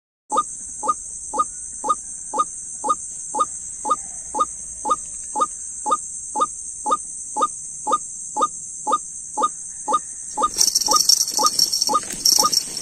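White-breasted waterhen (dahuk) call played as a lure through a Bluetooth speaker: a short falling 'kwak' repeated evenly about twice a second. A steady high-pitched hiss runs behind it and grows louder and rougher about ten seconds in.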